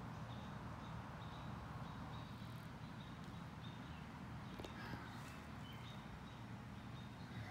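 Faint creekside ambience: a small bird's short high chirps repeating about twice a second over a low steady rumble, with one faint click about two-thirds of the way through.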